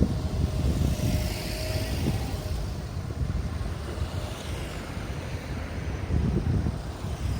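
Road traffic passing, a continuous uneven low rumble with wind buffeting the microphone.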